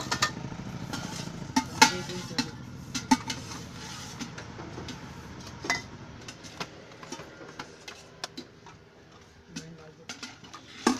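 Stainless-steel dishes and utensils clinking: samosas set on a steel plate and a ladle stirring and knocking inside a steel can, a string of sharp metallic clinks and taps.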